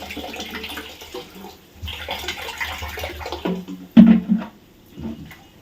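Water running from a tap into a pot of washed rice for soaking, in two spells, followed by a single sharp knock about four seconds in.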